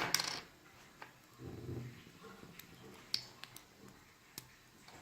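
Scattered sharp clicks and light handling noise from a plastic LED fidget spinner being handled, with a short low sound about one and a half seconds in.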